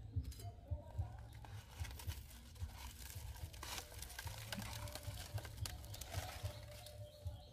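Scraping and crinkling as charred bell peppers are pried out of aluminium foil and hot embers with knife blades and set into a wicker basket, with many light clicks of metal on foil and charred skin.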